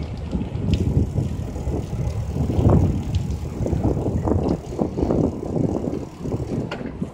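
Wind buffeting the microphone: a low, uneven rumble that swells and fades, with a few faint clicks.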